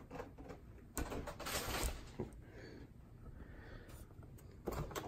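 Cardboard advent calendar box being handled. There is a click about a second in, then about a second of cardboard sliding and rubbing, then fainter rustling.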